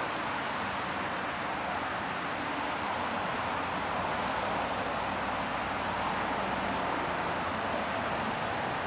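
Steady rushing and splashing of water from a small fountain-type geyser spouting at a river's edge, swelling a little in the middle.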